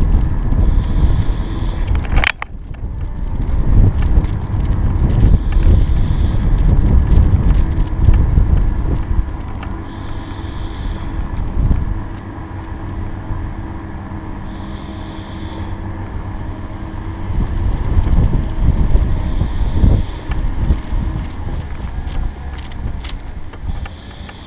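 The camera's carrier rolling along a tarmac path, heard as a heavy rumble with wind buffeting on the microphone and a steady hum over it. A sharp click comes about two seconds in, and a short high chirp recurs every four to five seconds.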